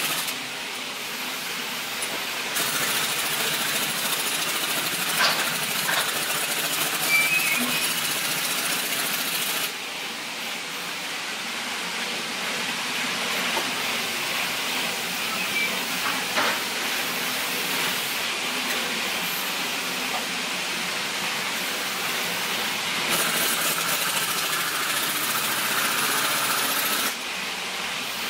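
Pneumatic impact wrench rattling in several long runs as it drives in the bolts that hold an excavator's final drive, with the loudest runs from about a tenth of the way in to a third in, and again near the end.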